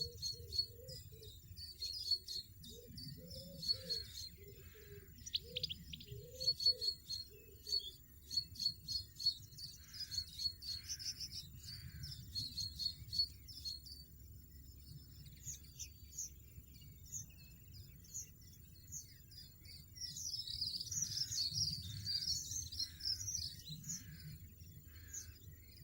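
European goldfinches chirping: a long run of short, high repeated chirps, then a denser bout of chirping about twenty seconds in.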